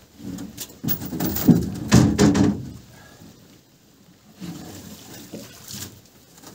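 Footsteps in rubber boots knocking on the floorboards of a small boat, a run of hollow thumps a second or two in, then quieter bumps and rummaging as things are handled at the bow.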